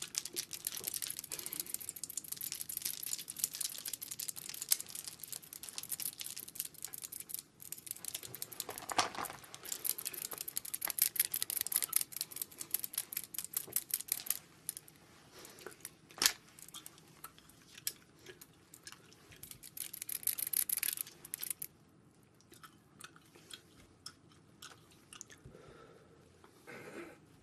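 Close-miked crinkling, crackling and clicking of makeup packaging and tools being unwrapped and handled, dense and fast for most of the time, then thinning to a few light ticks and taps for the last several seconds.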